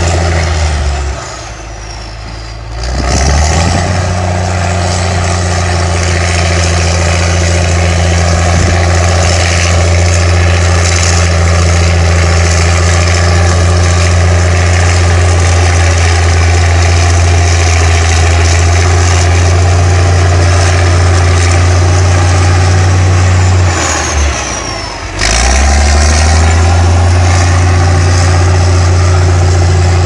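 Caterpillar D6 bulldozer's diesel engine running hard as the dozer pushes earth with its blade. The engine note drops and picks back up about a second in, and again a few seconds before the end.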